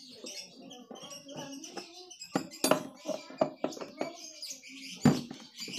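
Clicks and knocks of a steel T-handle wrench and bolts being worked in a scooter's plastic under-seat storage compartment, sharpest about two and a half seconds in and again near the end. Birds chirp in the background.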